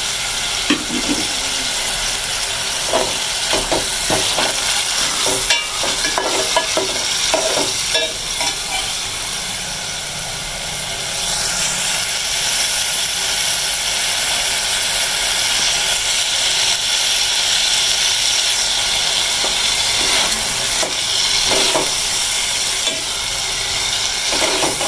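Tomatoes, green chillies and spices sizzling in hot oil in a metal pot as the masala is fried. A steel ladle scrapes and knocks against the pot in clusters in the first several seconds and again near the end.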